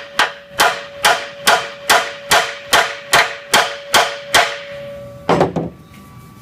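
Hammer tapping on a steel vehicle frame rail: about eleven even strikes, roughly two a second, each leaving the metal ringing on one steady note. The taps work out frame damage during straightening. A single heavier knock follows near the end.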